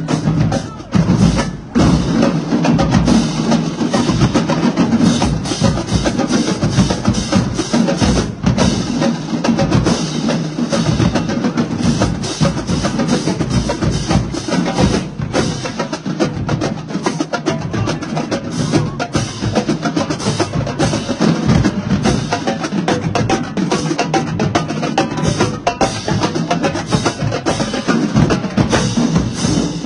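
Marching drumline playing a fast cadence: snare drums, tenor drums and crash cymbals in dense, unbroken stick strokes, with a short break about a second and a half in.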